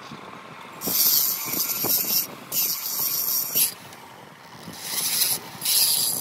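Handheld rotary tool grinding inside the port of a Yamaha RX135 two-stroke cylinder in four short bursts, with light knocks from the cylinder being handled between them.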